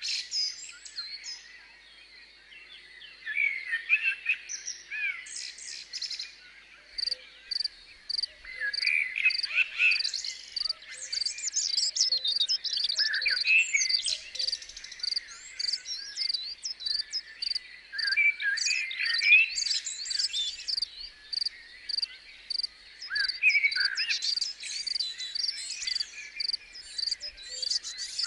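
Birds singing, with a cricket chirping steadily about twice a second that starts several seconds in.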